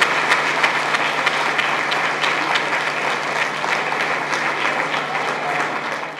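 An audience applauding: dense, steady clapping from many people, easing slightly toward the end.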